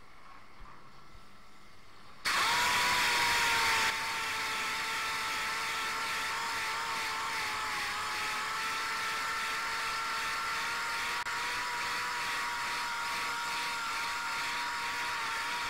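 A DA (dual-action) sander starts about two seconds in and then runs steadily with a whine and hiss, sanding the copper plating on a brass radiator shell. It is a little louder for its first second and a half.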